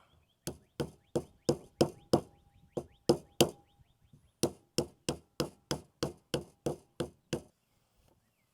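Rubber mallet tapping a new wiper seal down into a hydraulic boom cylinder's gland to seat it: about twenty even blows, roughly three a second, in two runs with a short pause between.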